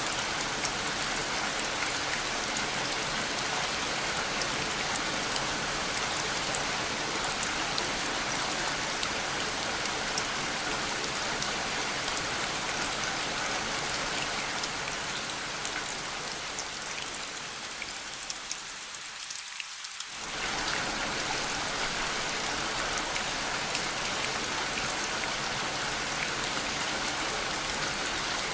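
Steady rain falling, a dense even patter with many small drop ticks. About two-thirds of the way through, the sound thins and quietens for a few seconds, then comes back in full abruptly.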